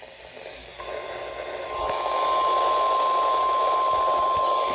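NOAA Weather Radio warning alarm tone, the single steady 1050 Hz tone of the weekly test, coming in about a second in over radio static that grows louder, heard through a weather radio receiver's speaker.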